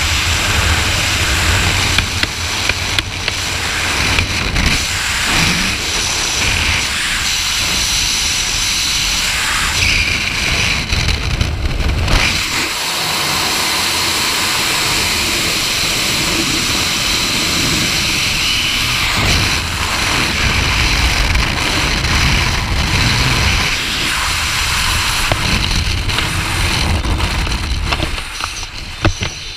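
Skydiving freefall wind rushing and buffeting hard over a head-mounted camera's microphone, steady and loud. Near the end it eases off and turns uneven as the parachute opens.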